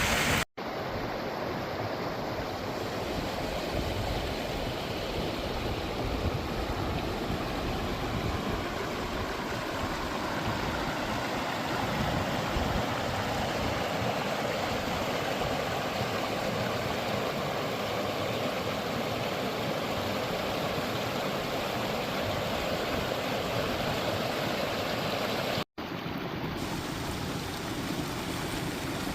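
Forest stream flowing steadily, an even rushing of water. It cuts out abruptly twice, for a split second about half a second in and again near the end.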